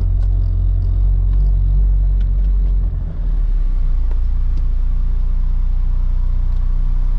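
Acura RSX engine running at low revs, a steady low rumble heard from inside the cabin as the car rolls slowly at walking pace.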